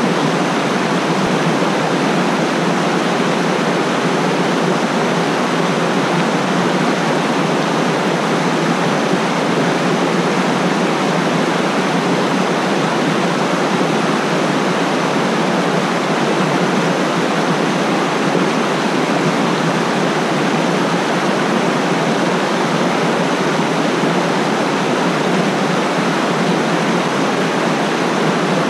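Mountain stream rushing over rocks and small cascades close to the microphone: a loud, steady, unbroken rush of water.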